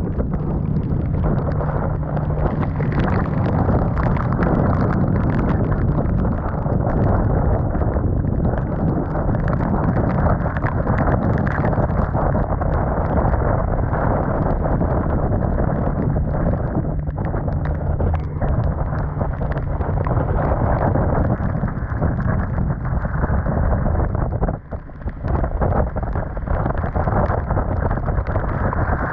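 Storm wind buffeting a sailboat's microphone, with rain and spray pelting the canvas dodger overhead: a loud, unbroken roar that drops away briefly near the end.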